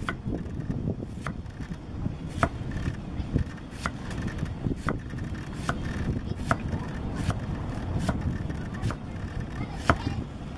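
Large kitchen knife slicing through banana stem pith into thin rounds, each cut ending in a sharp knock of the blade on a wooden chopping block, about one a second, over a steady low rumble.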